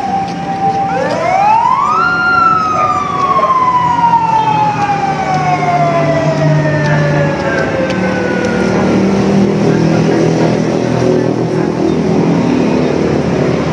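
A siren winds up quickly to a high pitch, then slowly winds down over about seven seconds, over a steady low hum.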